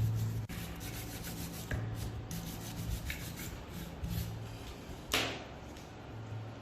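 Sanding on a part: a motor-like hum comes and goes in stretches of about a second, with a rubbing noise over it. One sharp clank comes about five seconds in.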